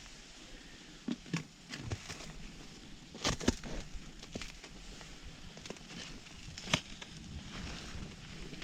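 Irregular knocks and crunches, a few sharper ones about a second in, around three and a half seconds in and near seven seconds, as gear is handled in snow and ice.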